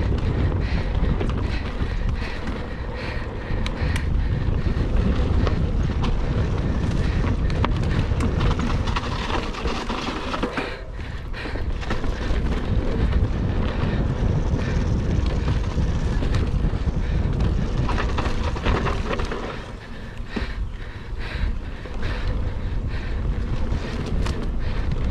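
Mountain bike ridden fast over rough trail: wind buffeting the camera's microphone, tyre noise and frequent rattles and clicks from the bike. The noise drops briefly twice, about eleven seconds in and again near twenty.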